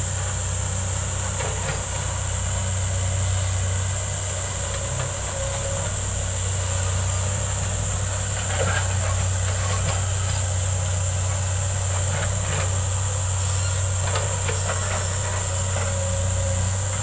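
Hydraulic excavators' diesel engines running at a distance: a steady low drone, with a few faint clanks from about halfway through and near the end, over a steady high-pitched whine.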